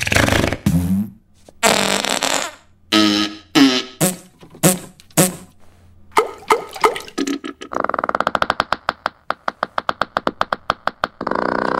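Comic fart sound effects: a string of short, loud blasts of varying pitch, then a fast rattling run of pops, and a long buzzing one near the end.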